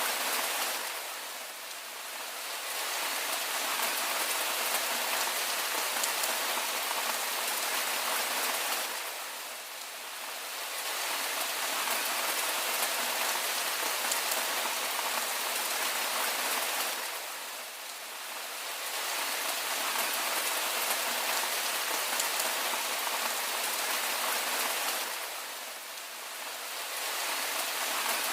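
Steady rain falling on a surface, a dense even hiss of drops. It dips slightly in loudness about every eight seconds.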